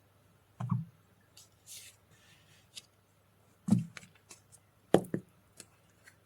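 Tarot cards being handled and laid on a table: a soft thump, a short card slide, then sharper taps, the loudest about four and five seconds in.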